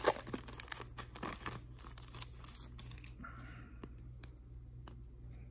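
Foil trading-card pack wrapper crinkling and tearing as it is pulled open, the crackle dying away after about a second and a half. Then come a few faint ticks as the cards are handled.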